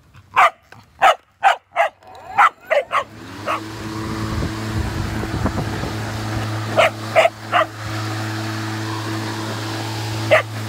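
A dog barks in quick, sharp barks. About three seconds in, an EGO Power+ battery electric lawn mower's motor spins up and then runs with a steady hum. The dog barks three times more about seven seconds in and once near the end.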